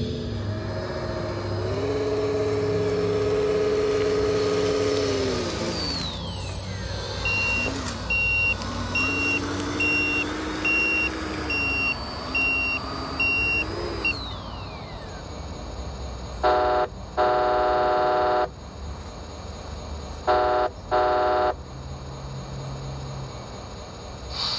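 Electronic sound kits on radio-controlled construction models: a simulated diesel engine revving up and down. It is joined by a reversing beeper sounding about once a second for several seconds, then by a truck horn honked in two double blasts in the second half, the longest blast lasting about a second and a half.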